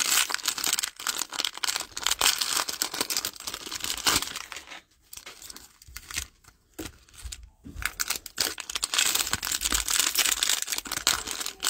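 Foil trading-card pack wrappers crinkling and tearing as Panini Mosaic packs are ripped open by hand, with a quieter pause about halfway through.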